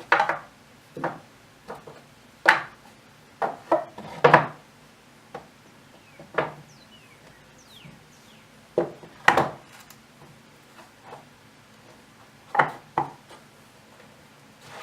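Irregular knocks and clunks of wooden log pieces striking or being set against each other, about a dozen spread unevenly, some in quick pairs.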